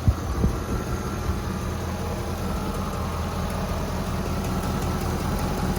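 Chevrolet Avalanche 2500's 8.1-litre Vortec big-block V8 idling steadily and smoothly, with a couple of light clicks near the start; the engine is in good running order.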